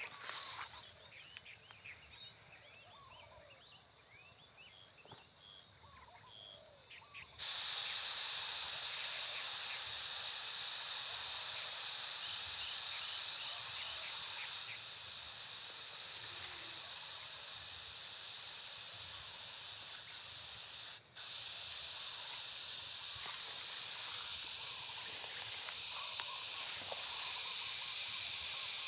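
Field insects keep up a high-pitched trilling chorus with a fast pulsing chirp. An even hiss comes in abruptly about seven seconds in and stays under the trilling.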